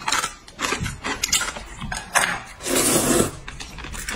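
Two people slurping hot and sour noodles and chewing, a string of short wet clicks with one longer slurp about three seconds in.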